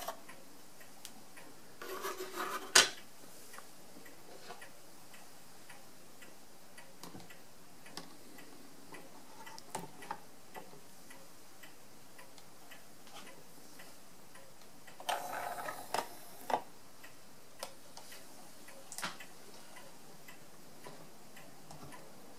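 Faint scattered ticks and clicks over a low hiss. Short bursts of rustling handling noise come about two seconds in and about fifteen seconds in, and one sharp click, the loudest sound, comes just before three seconds in.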